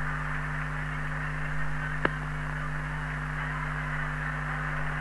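Hiss of an open AM CB radio channel between transmissions, recorded on tape, over a steady low mains-type hum, with one sharp click about two seconds in.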